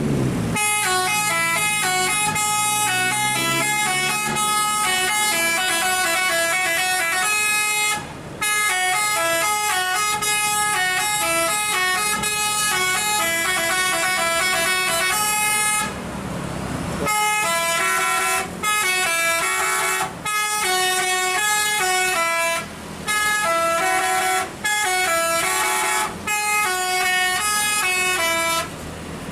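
Basuri 'telolet' multi-tone bus horn playing a long, loud melody of quick stepping notes, with several short breaks. In a pause of about a second midway, the bus engine is heard rising and falling in pitch.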